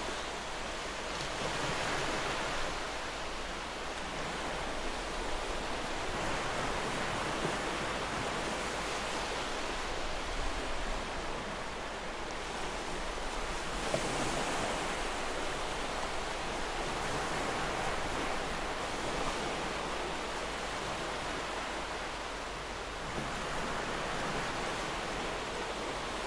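Sea surf washing on a rocky shore: a steady hiss of waves that slowly swells and eases.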